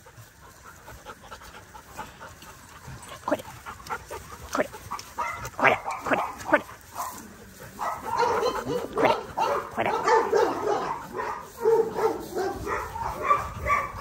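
Dogs playing together, barking and yipping. The sounds are sparse for the first few seconds and come thicker and louder from about halfway through.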